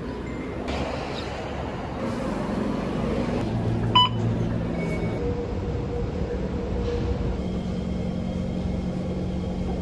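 Steady rumble of a bus running, with one short, sharp beep from the bus fare card reader about four seconds in as a transit card is tapped on it.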